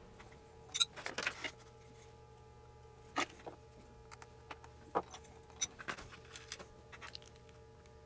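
Scattered light clicks, taps and a brief rustle as a small circuit board is handled and clamped into a bench PCB holder, over a faint steady hum.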